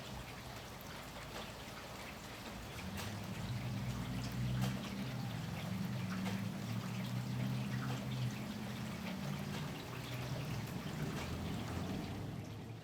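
Steady rain with many close, sharp drips, and a low rumble of distant thunder that swells a few seconds in and carries on through most of the stretch.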